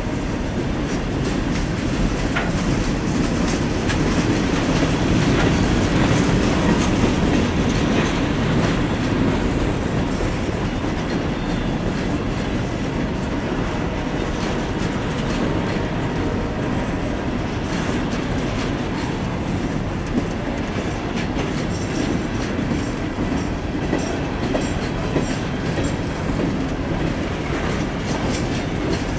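Loaded freight train of steel hopper cars rolling past at steady speed: a continuous rumble and clatter of steel wheels on the rails, with clicking as the trucks pass over the track.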